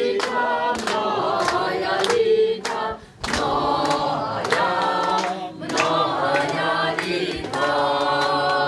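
A crowd of people singing together in chorus: long held sung phrases with short pauses between them.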